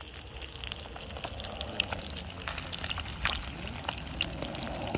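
Fish frying in hot oil over a wood fire: a steady sizzle with scattered crackling pops.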